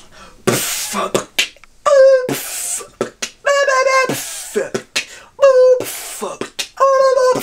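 A man beatboxing with a hand cupped over his mouth: loud hissing bursts alternate with several held, hummed notes in a loose repeating pattern.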